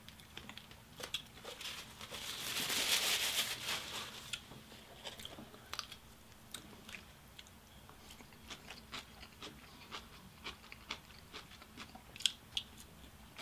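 A rustle of paper or plastic for about two seconds, then quiet chewing and mouth sounds with light clicks as coleslaw is eaten with a plastic spoon.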